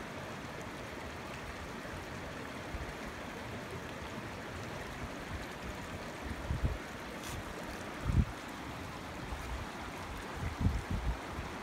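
Creek water running over rocks, a steady rush. A few short low thumps on the microphone stand out above it, the loudest about eight seconds in.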